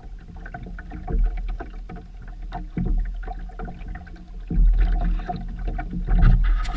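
Sailboat under way: water sloshing and slapping along the hull, with a low, surging rumble and scattered small knocks and splashes.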